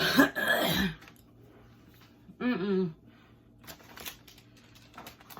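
A person's wordless vocal sounds while eating a chewy gelatin candy: a loud, noisy outburst in the first second, then a short hummed sound about two and a half seconds in, followed by faint clicks and rustles.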